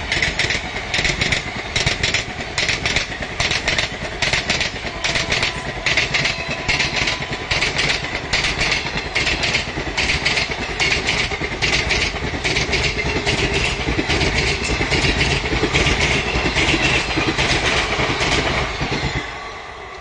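Passenger train passing close by on the adjacent track, its wheels clattering over the rail joints in a fast, even rhythm over a steady rumble. The sound falls away suddenly near the end.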